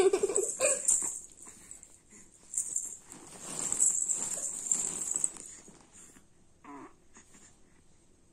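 A baby's cooing and breathy play sounds: a short falling coo at the start, a longer breathy, wheezy stretch in the middle, and a brief coo near the end.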